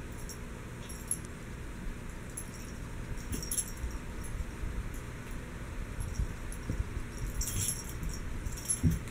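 Kitten playing: her collar jingles in short, scattered bursts as she leaps and bats at a dangling toy. Soft thumps and scuffs of her paws on a rug run underneath.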